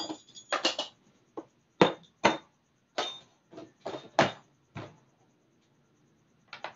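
Metal hole saws from a door-lock hole-saw kit being set into their plastic storage case: a string of sharp knocks and clicks that stops about five seconds in.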